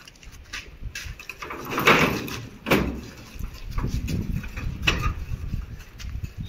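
A run of knocks and bangs, the two loudest about two seconds and nearly three seconds in.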